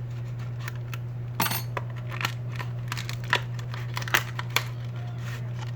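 Scattered light clicks and taps of a replacement iPhone battery and small parts being picked up and handled, with a brief rustle about a second and a half in, over a steady low hum.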